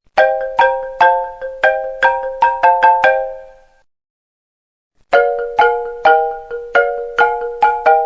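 iPhone ringtone melody in bright marimba-like mallet tones, a short phrase of chords at about two to three notes a second. It fades out about four seconds in, is silent for a moment, then starts over about a second later.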